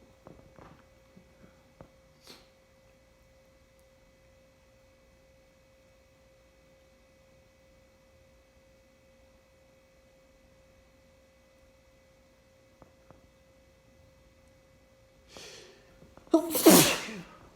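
A person in a sneezing fit: a long quiet pause over a faint steady hum, then near the end a sharp intake of breath and one loud sneeze.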